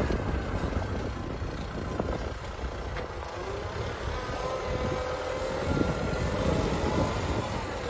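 Kubota M6040 tractor's diesel engine running steadily under load as it pulls a disc plough through dry ground.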